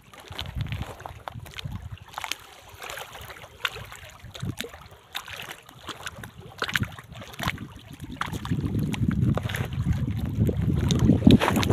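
Wind buffeting the microphone, a low rumble that grows stronger about two-thirds of the way in, with scattered short sharp clicks.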